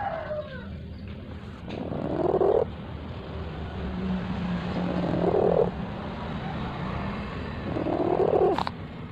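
Domestic cat purring right at the microphone. The purr swells and breaks off with each breath, three times, about three seconds apart.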